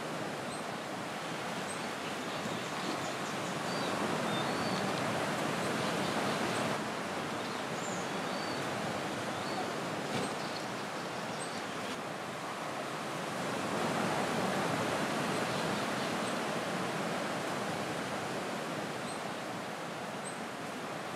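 Steady rush of sea surf that swells and eases slowly, with faint short high bird chirps scattered through it.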